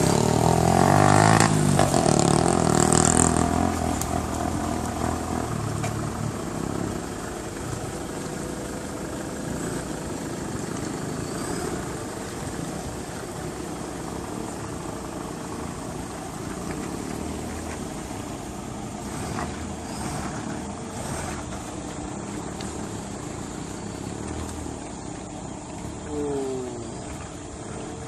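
Toyota Fortuner's 3.0 D-4D turbodiesel engine pulling the SUV slowly through a muddy, rutted off-road trail: loudest for the first few seconds, then settling into a steady low-speed crawl, with a brief swell in engine sound near the end.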